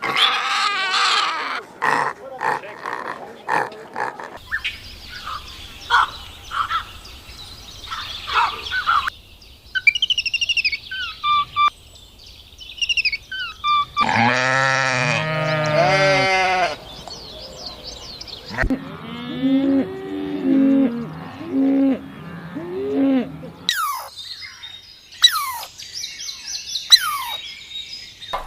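A string of different farm animal calls, changing every few seconds, including drawn-out pitched bleats or moos and some high bird-like chirps.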